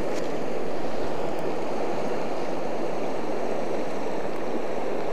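A wide, rocky river flowing fast through a riffle: a steady rush of water.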